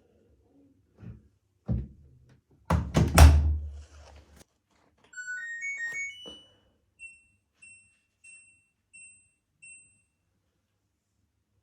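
LG F2T9HSBB front-loading washing machine: a few thumps, the heaviest about three seconds in, then the control panel's short rising melody of electronic tones. After that come six short high beeps evenly spaced, a bit over half a second apart, as the buttons are pressed.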